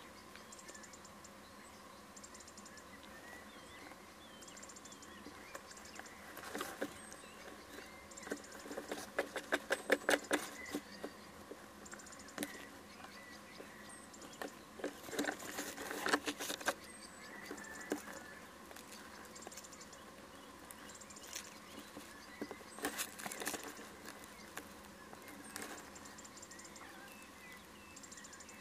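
A little owl shifting about in a wooden nest box, its claws and beak scratching and tapping as it works at a small prey bird. The sound comes in irregular bursts of rustling and clicks, the densest a rapid run of taps about ten seconds in.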